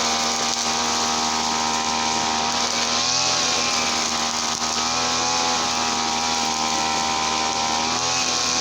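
Small two-stroke brush cutter engine running steadily at working speed, its pitch dipping and recovering slightly a couple of times.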